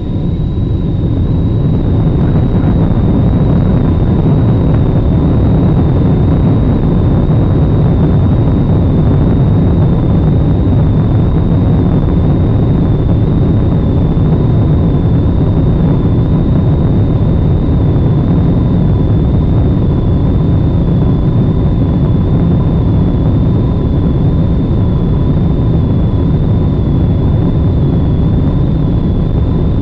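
Cabin noise aboard a Boeing 777-200ER on its take-off roll: its twin Pratt & Whitney PW4090 engines at take-off thrust with the rumble of the runway, a loud steady rush. It builds over the first couple of seconds, then holds level, with faint steady high tones above it.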